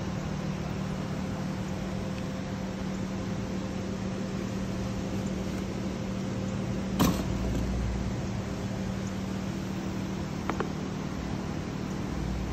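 Steady low mechanical hum with an even pitch, with one sharp click about seven seconds in and a fainter one near the end.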